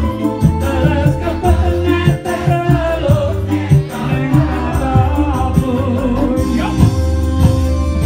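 Live campursari band music through PA speakers, with a heavy bass beat and a male voice singing into a microphone, the crowd singing along.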